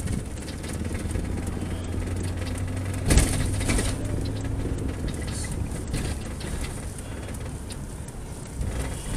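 A vehicle engine running steadily with a low hum, with a brief louder rush of noise about three seconds in.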